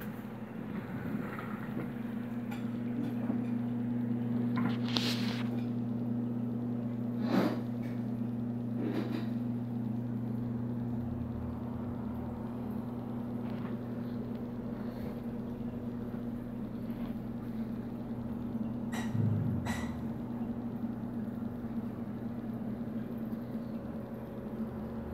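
Steady electrical hum of reef aquarium pumps and equipment, with a few sharp clicks, the loudest about seven seconds in.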